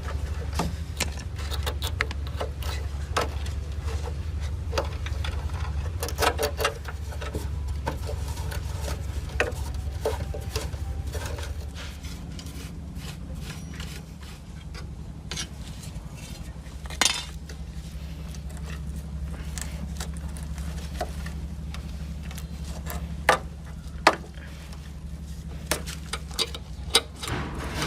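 Small metal parts and tools clinking and tapping against each other at irregular moments, a few knocks louder than the rest, over a steady low hum.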